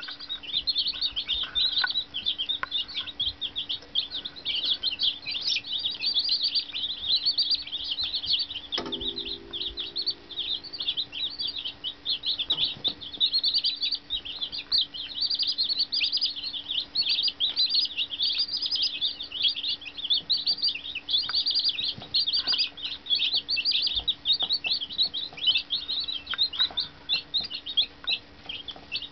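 A brood of Cornish Cross broiler chicks peeping steadily, many rapid high chirps overlapping without a break.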